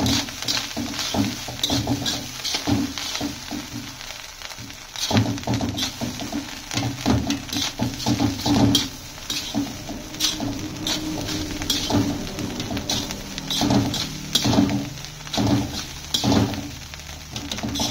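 Flat metal spatula scraping and tossing egg fried rice in a large iron wok, with repeated scrapes and knocks of the spatula against the pan over a sizzle of frying.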